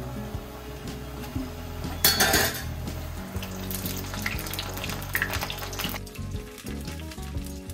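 Rolled nimki dough frying in hot oil in an iron kadhai: a steady, bubbling sizzle that swells loudest about two seconds in, with a metal spoon stirring through the oil.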